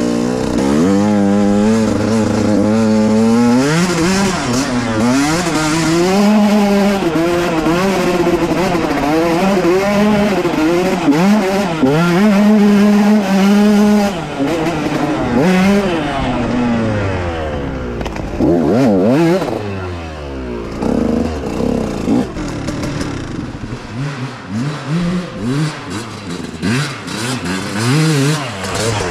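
Dirt bike engine under way off-road, its revs rising and falling constantly with the throttle. About sixteen seconds in it drops to a low idle and is then blipped up in short rises.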